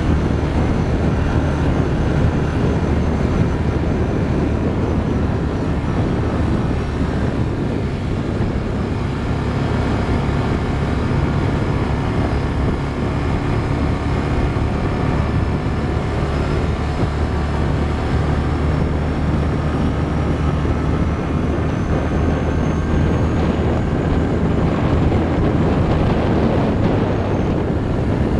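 ATV engine running at a steady cruising speed along a dirt trail, a constant low drone under a haze of tyre and wind noise.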